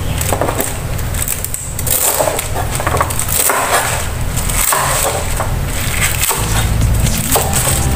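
Chef's knife chopping through leafy green stalks and leaves on a plastic cutting board: a quick, uneven series of crisp cuts and knocks of the blade on the board.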